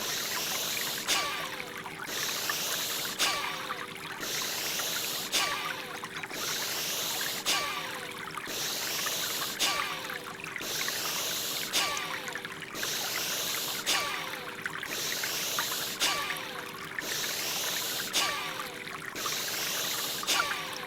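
Bhastrika bellows-breathing sound effect: forceful hissing breaths in an even rhythm, one cycle about every two seconds, about ten in all. Under it runs a trickling water-flow background with a faint steady tone.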